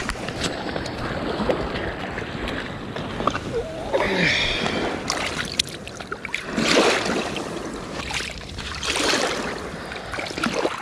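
Shallow seawater sloshing and splashing around a hand holding an undersized bass in the water to revive it, with three stronger splashy surges about four, seven and nine seconds in, over the steady wash of small waves on shingle.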